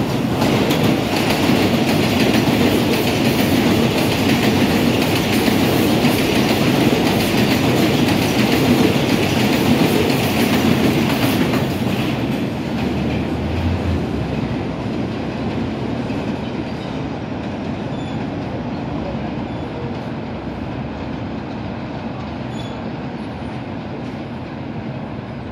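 An R142 subway train passing through an elevated station without stopping: a loud rumble and clatter of steel wheels on the rails for about twelve seconds, then fading away steadily as the train moves off.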